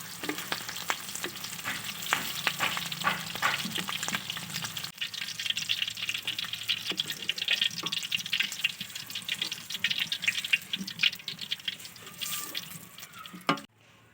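Onion pieces frying in hot oil in a kadai, a steady sizzle thick with sharp crackles and pops. It breaks briefly about five seconds in and cuts off suddenly near the end.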